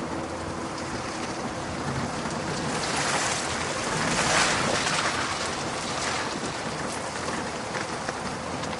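Chevy 4x4 driving along a wet, muddy track, heard from outside the side window: a steady rush of wind and wet tyre noise that swells about three seconds in and eases off after about five seconds.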